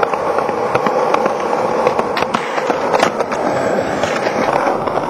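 Skateboard wheels rolling over rough concrete: a steady grinding rumble scattered with frequent clicks and clacks.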